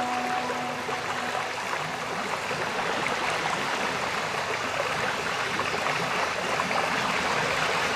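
Small waves washing over and around seaweed-covered shore rocks: a steady rush of moving water.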